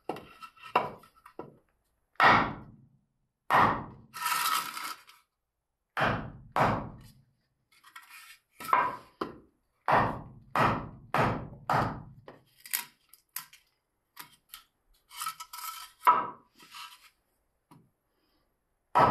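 Mortising axe chopping into a wooden plank to cut a mortise: a dozen or more sharp wooden chops at irregular intervals, with stretches of scraping between them as the blade works the chips out.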